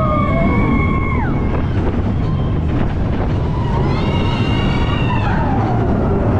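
Mine-train roller coaster rumbling along its track at speed, with wind buffeting the microphone. Riders' long held whoops ride over it, one ending in a falling drop a second in and another high cry around four to five seconds in.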